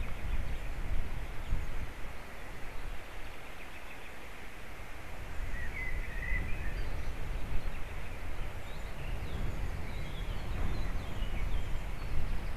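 Wind rumbling on an outdoor nest-camera microphone, with faint, brief bird chirps in the background, one a little louder about halfway through.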